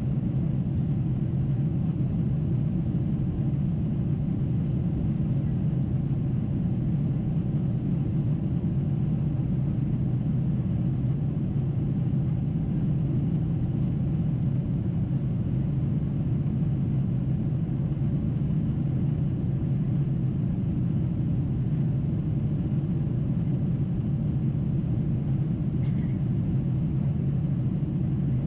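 Steady low cabin drone of a Boeing 747-8 climbing after takeoff, its four GE GEnx-2B engines and the airflow past the fuselage heard from inside at a window seat.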